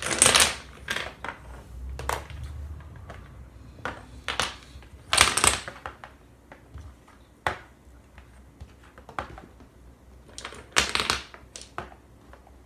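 Domino tiles clicking as they are picked from a loose pile and stood up one by one in a line, with a few louder bursts of clatter from the heap.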